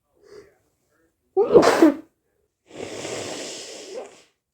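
A person sneezes once, loudly, about a second and a half in, after a faint catch of breath. The sneeze is followed by about a second and a half of steady rushing air, a nose blow.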